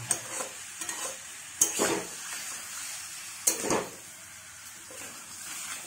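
Marinated chicken frying in a pot with onions and ginger-garlic paste, a steady sizzle. A spatula scrapes against the pot, with sharp strokes near the start, about a second and a half in and around three and a half seconds.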